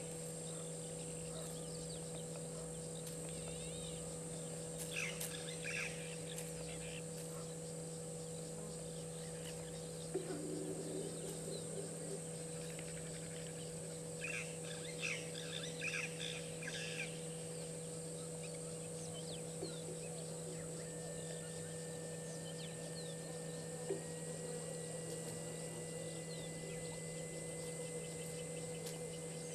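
Outdoor bush ambience: a steady high insect drone over a constant low hum. Bursts of bird chirps come about five seconds in and again around fifteen seconds in, and a thin steady tone starts about two-thirds of the way through.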